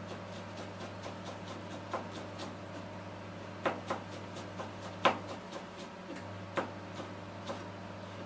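Scattered light clicks and a few sharper knocks of cooking work, the loudest about halfway through, over a steady low electrical hum.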